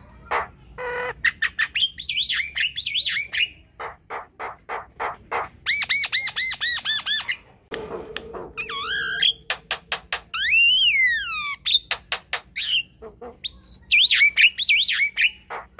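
Javan myna singing a varied song: runs of harsh, clicking notes about four a second, mixed with squeaky whistled notes and a long whistle that rises and falls about ten seconds in.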